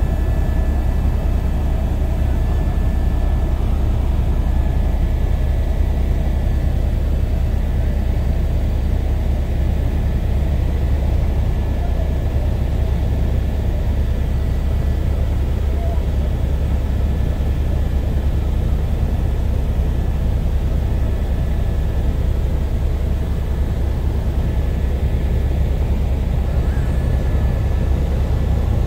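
Helicopter in flight, heard from on board: a steady, loud drone of rotor and engine with a heavy low rumble and a faint high steady whine, unchanging throughout.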